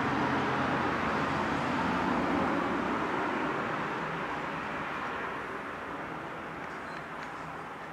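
A passing vehicle, a broad rushing noise with a low hum that fades steadily away.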